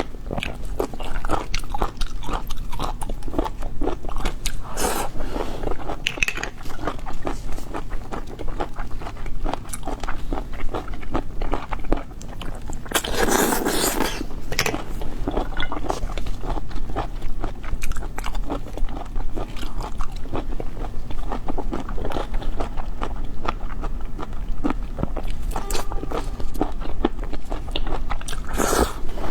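Close-miked chewing and biting of boiled cockles, full of rapid small sharp clicks, with a louder noisy burst about halfway through and again near the end.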